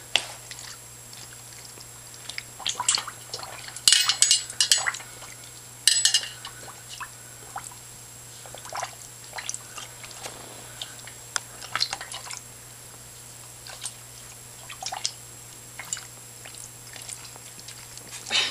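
A dog blowing bubbles into a stainless steel water bowl with its muzzle in the water, giving irregular bubbling and splashing, loudest in two bursts about four and six seconds in.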